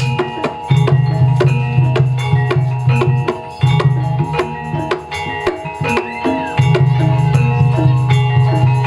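Loud live gamelan music for a jaranan trance dance: kendang drums beat fast and dense over a stepping metallophone melody and ringing gong tones, with a deep note held for a few seconds at a time.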